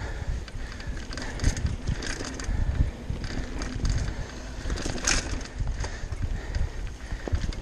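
Mountain bike riding fast down a dirt singletrack trail: tyres rumbling over the rough ground, with irregular rattles and knocks from the bike and a sharp clack about five seconds in.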